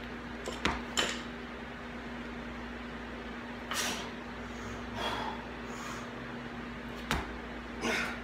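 Olympic barbell clean and jerk: two sharp knocks of bar, plates and feet about a second in as the bar is pulled from the floor and caught at the shoulders, then another sharp knock near the end as it is driven overhead into a split. A steady low hum runs underneath.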